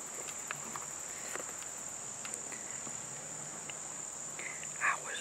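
Steady high-pitched chorus of crickets and other insects, with a few faint ticks and a short rustle near the end.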